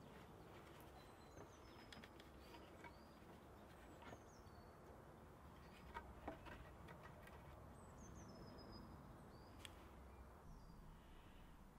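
Faint woodland birdsong: scattered short, high chirps and whistled notes over a quiet background, with a couple of soft knocks about six seconds in.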